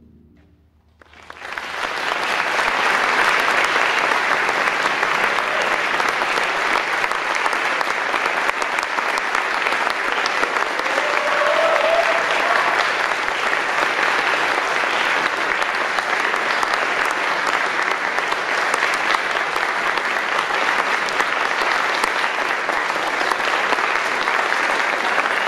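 The wind ensemble's final chord fades out in the hall's reverberation, and about a second and a half in the audience breaks into applause that stays steady and full.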